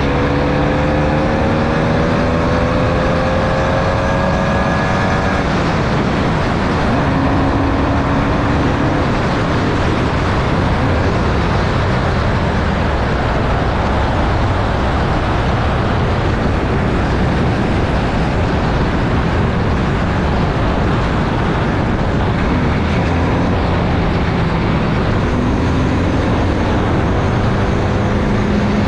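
Formula Vee's 1200cc air-cooled Volkswagen flat-four engine at racing speed, heard onboard, rising in pitch as the car accelerates over the first few seconds. Its note then sinks under heavy wind and road rush, and climbs again near the end.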